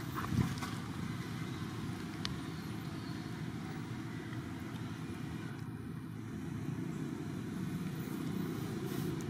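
A steady low rumble in the background, with a short knock about half a second in.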